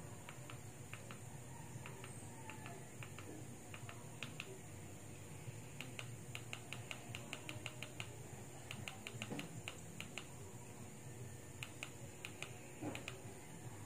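Faint clicks of a remote control's buttons being pressed over and over, often in quick runs of about four or five presses a second, over a steady low hum.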